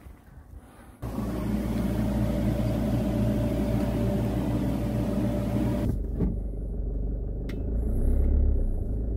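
A refrigerator running with a loud steady hum made of several held tones. About six seconds in it cuts to the low rumble of a car heard from inside the cabin.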